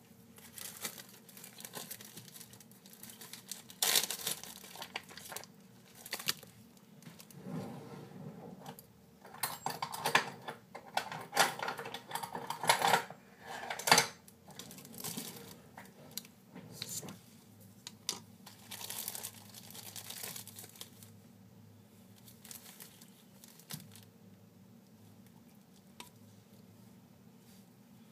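Plastic being crinkled and crumpled in irregular bursts, loudest about a third of the way in, then thinning to a few small crackles for the last several seconds.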